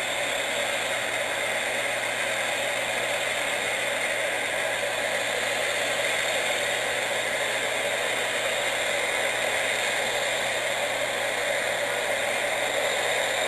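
Steady, even hiss that does not change at all, including when the picture cuts.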